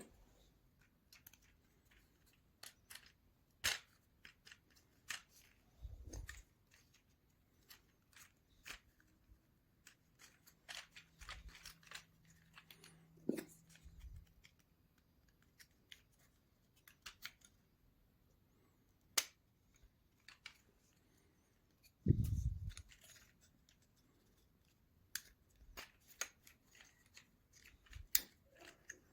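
Small basswood model parts being handled and pressed together: scattered light clicks and taps, with a duller thump about six seconds in and a louder one about three-quarters of the way through.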